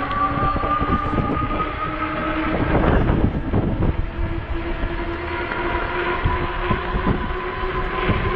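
E-bike hub motor whining as the bike pulls away and picks up speed, the whine rising slightly in pitch over the first few seconds and then holding steady, with wind rumbling on the microphone.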